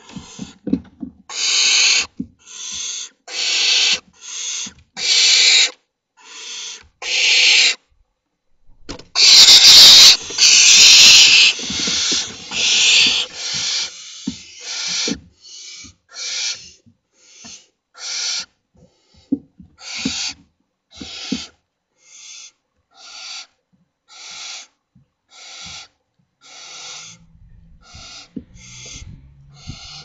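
Barn owl chicks giving their hissing, snore-like begging calls, about one a second. A longer, louder rasping burst runs about nine to twelve seconds in, and the calls grow shorter and fainter near the end.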